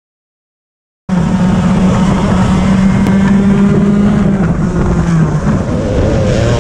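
Silence for about the first second, then a racing kart's two-stroke engine running at high revs, heard onboard. Its pitch falls in two steps in the second half as the kart goes into a corner.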